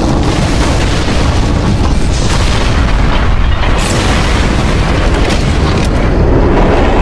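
Loud, dense layered battle sound effects: continuous booming, explosion-like rumble with sharp impact hits scattered through it.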